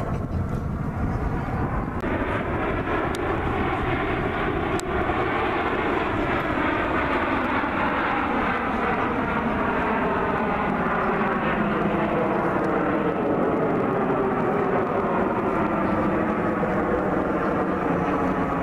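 The jet engines of a nine-plane formation of CT-114 Tutor jets flying overhead: a steady rushing drone whose tone slowly shifts as the formation moves across the sky. It grows louder about two seconds in.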